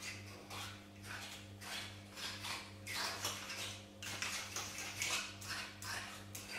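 A spoon stirring and scraping in a small bowl in quick, rhythmic strokes, about two to three a second, dissolving cornstarch in milk so the béchamel won't go lumpy. A low steady hum runs beneath.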